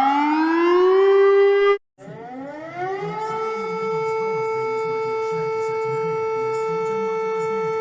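Civil defense siren winding up to a steady tone, cutting off abruptly just under two seconds in, then winding up again and holding one steady tone.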